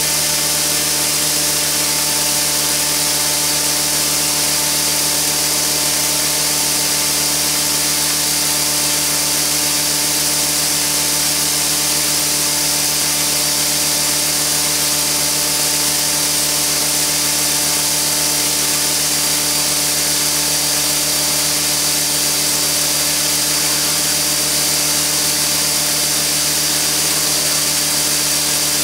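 Electric RC helicopter (ALZRC Devil 420 Fast) spooled up on the ground at zero pitch, its main rotor held at a steady headspeed of about 2,320 RPM. Steady blade whir with an even motor hum and a strong hiss of rotor wash.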